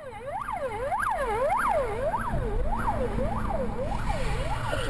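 Police car siren wailing in a fast up-and-down sweep, a little less than twice a second, over a low rumble of traffic.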